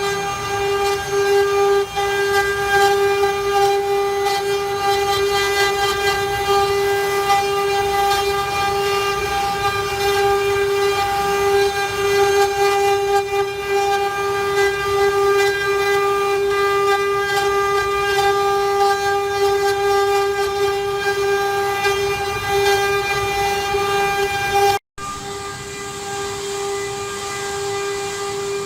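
CNC router spindle running with a steady high whine. About 25 seconds in it breaks off abruptly, then the same whine returns with more hiss over it.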